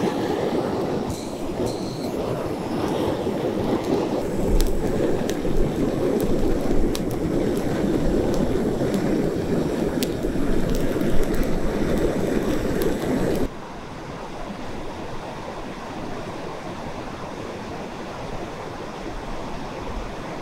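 Butane gas torch running with a steady roar as it lights kindling, with a few sharp crackles from the twigs catching. About thirteen seconds in, the roar cuts off suddenly, leaving the quieter, steady rush of a fast mountain river.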